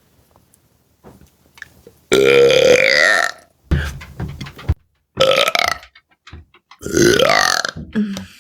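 A woman belching three times in a row: one long, loud burp about two seconds in, followed by two shorter ones.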